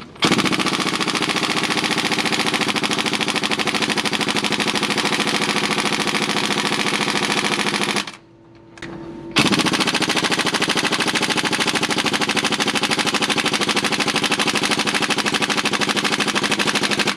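Air impact wrench hammering on a bolt of a Fendt tractor's trailer-hitch mounting, in two long runs of about eight seconds with a pause of about a second between them. The bolt is very tough and slow to break loose.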